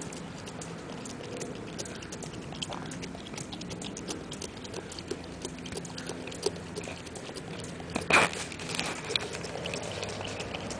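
A golden retriever–cocker spaniel mix licking whipped cream out of a small paper cup: a steady run of quick, wet licking clicks, with one brief louder noise about eight seconds in as the cup is knocked over.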